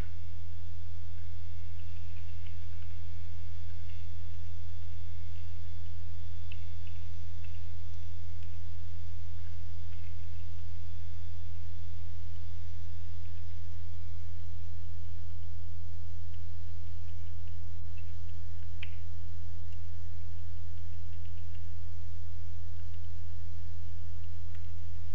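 Loud, steady low electrical mains hum picked up in the recording. Faint computer-keyboard clicks come now and then as code is typed.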